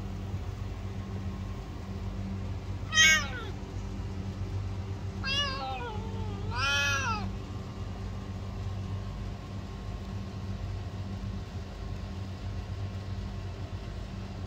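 Domestic cat meowing three times in the first half: a short, loud first meow, then two longer ones, the last rising and falling in pitch. A steady low hum runs underneath.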